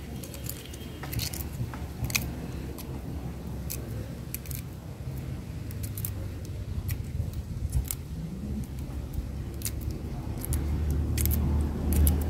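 Boiled eggs being cracked and peeled by hand: scattered small clicks and crackles of breaking shell. A low rumble underneath grows louder near the end.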